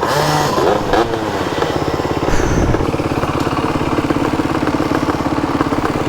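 Motorcycle engine idling with an even, fast beat.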